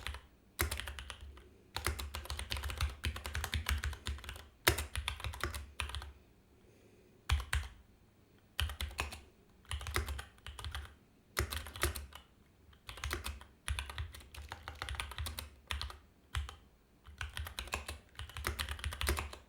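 Typing on a computer keyboard in bursts of rapid keystrokes with short pauses between them, a few louder clacks among them, as console commands are entered.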